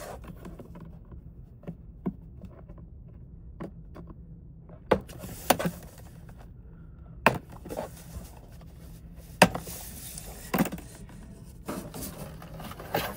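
Cutters snipping through plastic packing straps: about five sharp snaps a second or two apart, the loudest about two thirds of the way in. Near the end the cut straps and foam packing rub and scrape as they are pulled away.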